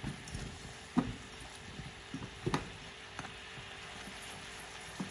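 Caramel syrup (sugar cooked golden, then thinned with water) bubbling with a steady hiss in a nonstick saucepan as the sugar dissolves, stirred with a silicone spatula. The spatula knocks against the pan a few times, loudest about a second in and again about two and a half seconds in.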